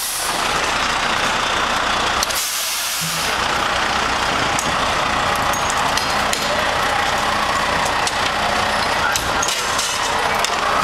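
Fire trucks' diesel engines running steadily, with a short burst of air hiss about two seconds in and a few knocks of equipment being handled.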